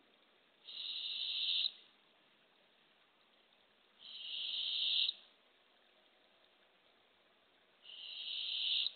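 Barred owl owlet giving its raspy, hissing begging call three times, each about a second long, swelling louder and then cutting off sharply. The call is a hungry chick begging for food.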